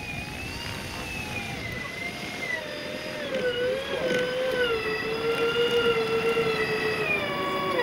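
Twin electric motors of a 1/6-scale P-38 Lightning model aircraft spinning its propellers as it taxis on grass: a whine that wavers in pitch and grows louder about halfway through, then begins to wind down at the very end.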